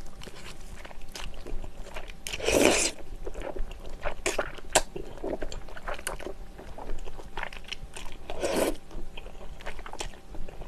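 Close-miked eating of thick, sauce-coated Chinese glass noodles: two long slurps, one a couple of seconds in and one about three-quarters of the way through, between wet chewing and small mouth clicks.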